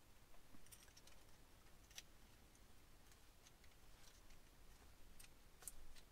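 Near silence broken by a few faint, sharp plastic clicks and ticks as a microSD card is worked into the card slot of a BlackVue DR970X-2CH dashcam, the clearest one about two seconds in and a couple more near the end.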